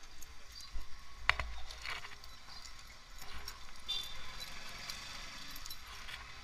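Small clicks and knocks from keys being handled at a parked motorcycle's ignition, the sharpest click a little over a second in, over low street rumble.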